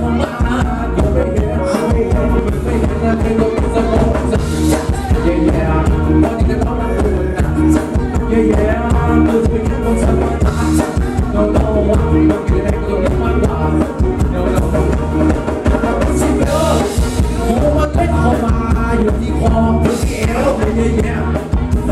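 Live Thai ramwong dance music from a band: a male singer over a drum kit and band keeping a steady dance beat.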